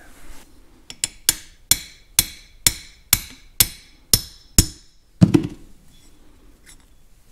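A hammer strikes a steel drift punch about nine times at an even pace, each blow a sharp metallic tap with a short ring, driving a throttle-shaft bushing into a Farmall M carburetor throttle body. A single duller thump follows a little after 5 s.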